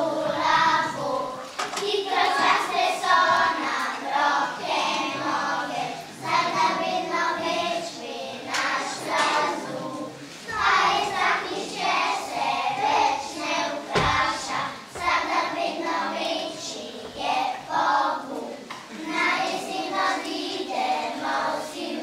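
A group of young children singing together in unison, with a single thump about fourteen seconds in.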